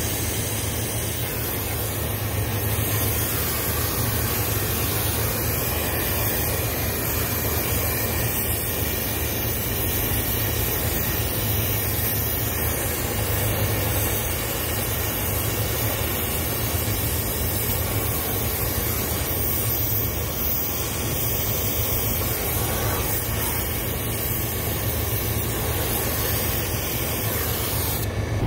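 Brazing torch flame hissing steadily while a copper refrigerant line joint is brazed on a walk-in cooler compressor.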